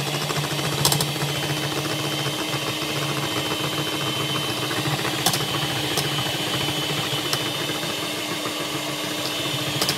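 Electric hand mixer running steadily, its twin wire beaters whisking egg yolks and melted butter as milk is poured in. A few sharp clicks stand out over the motor.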